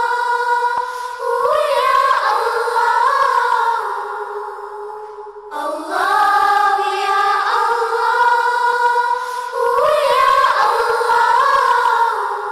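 Intro music: a sung chant of long held notes with sliding pitch, the phrase breaking off about five and a half seconds in and starting again.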